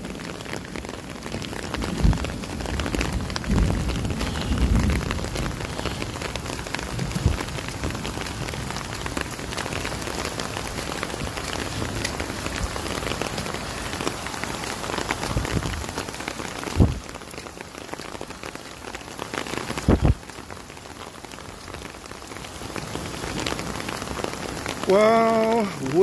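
Steady rain falling, mixed with muddy floodwater running over the ground, with a few dull thumps.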